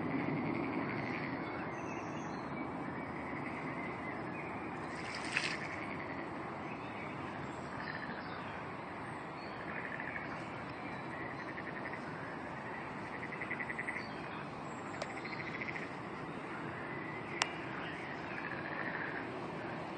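Steady outdoor background noise with faint, brief buzzy chirps now and then, and two short clicks, one about a quarter of the way in and one near the end.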